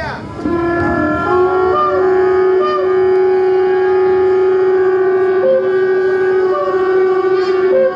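Several shofars (ram's horns) blown together in long, overlapping held blasts at different pitches.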